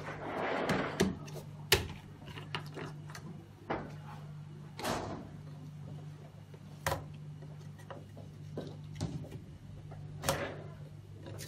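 Plastic reagent bottles being handled and set down on a cloth-covered table: scattered knocks and a few short rustling swishes over a steady low hum.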